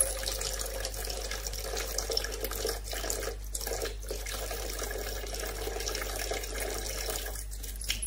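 Kitchen tap running in a thin steady stream into the sink, with a few brief splashes about three seconds in as a cat paws at the falling water.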